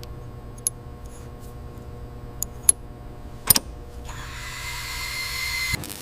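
Steady low mechanical hum with a few sharp metallic clicks, the loudest about three and a half seconds in, then a hiss with a thin whistling tone lasting about a second and a half that cuts off suddenly.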